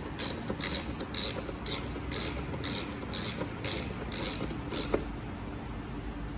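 Socket ratchet tightening down a 10 mm bolt: short bursts of pawl clicking, about two a second. They stop about five seconds in with one sharper click as the bolt is snugged.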